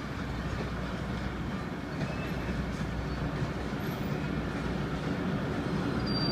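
ZCU-20 diesel-electric locomotive and its train approaching: a low, steady rumble that grows gradually louder as it comes closer.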